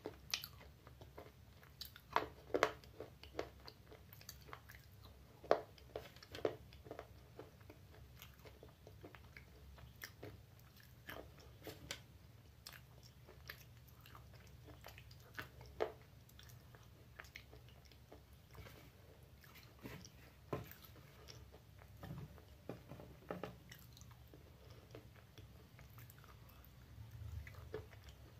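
A person crunching and chewing pieces of baked clay (smoky clay and broken clay pot). Irregular sharp crunches between quieter chewing, with the loudest bites about two seconds in and about five to six seconds in.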